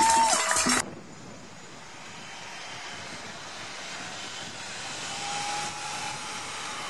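Music and crowd cheering cut off abruptly less than a second in, followed by a steady rushing noise of a vehicle on the road that slowly grows louder.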